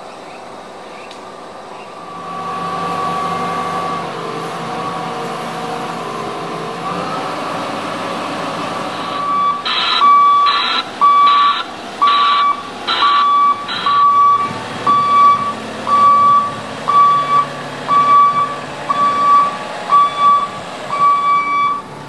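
A heavy vehicle's diesel engine running, then from about ten seconds in its electronic warning beeper sounding in an even rhythm, a little more than one beep a second, louder than the engine.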